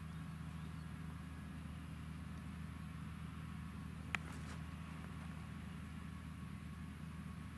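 Fendt 936 Vario tractor's six-cylinder diesel engine running steadily as a low hum while it pulls a slurry tanker with a trailing-hose boom. A single short, sharp tick about four seconds in.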